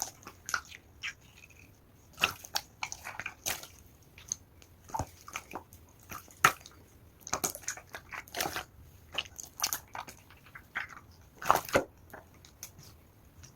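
Clear slime being worked, making irregular clicks, pops and crackles at an uneven pace.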